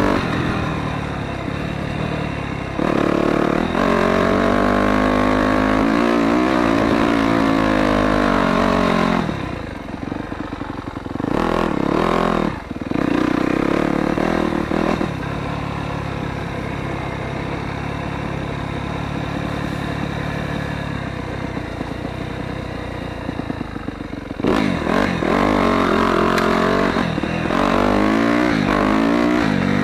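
Dirt bike engine revving up and down as the rider works the throttle and gears while riding, with the throttle briefly chopped twice about nine and twelve seconds in, a steadier stretch in the middle and more revving near the end.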